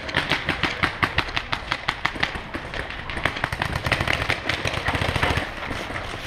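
Paintball markers firing in rapid strings, several sharp pops a second, for about five seconds before thinning out.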